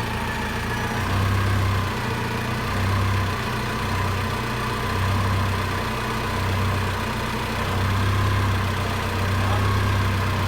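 Nissan 3-ton forklift engine idling, its low hum swelling and easing in a slow, uneven rhythm about every second and a half.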